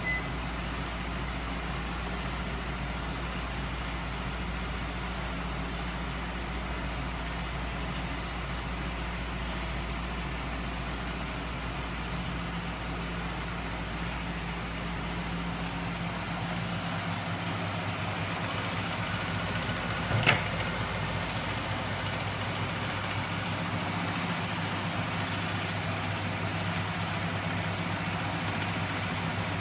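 Homemade magnet engine rig, driven by small 12-volt DC electric motors turning flywheels and a crankshaft, running with a steady mechanical hum. The low part of the hum changes about two-thirds of the way through, and a single sharp click sounds shortly after.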